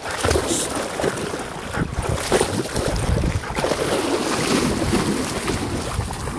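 Golden retriever splashing through shallow water, leaping and pawing so the water churns and sprays in a continuous run of splashes with irregular surges.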